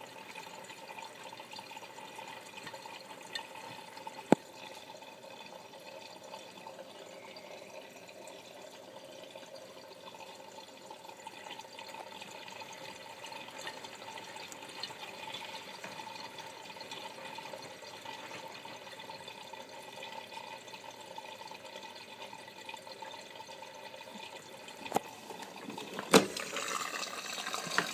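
Miele W562 front-loading washing machine taking in water for its first rinse: a steady hiss of water running in, with a faint steady tone. A sharp click comes about four seconds in, and a couple of knocks come near the end.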